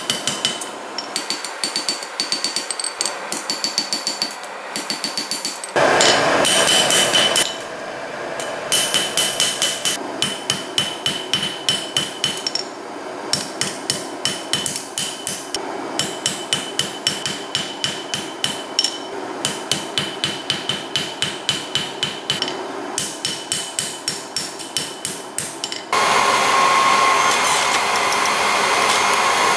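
Hand hammer striking a red-hot sword blade on a steel anvil in a fast, steady rhythm of about three to four blows a second, the anvil ringing after each blow. Near the end the blows turn denser and louder as a power hammer works the hot steel.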